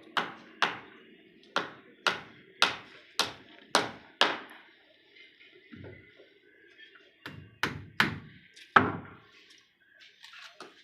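Repeated sharp blows of a hammer striking, about two a second for four seconds. After a pause, a few more blows come at an uneven pace, each with a short ring.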